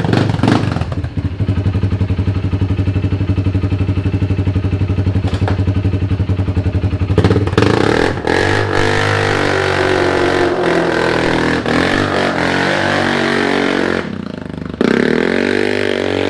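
The single-cylinder engine of a 2017 Kawasaki Brute Force 300 ATV running hard while ridden, its carburettor re-jetted with a Dynojet stage 1 kit. It holds a steady pitch for several seconds, then revs up and down, easing off briefly about fourteen seconds in before picking up again.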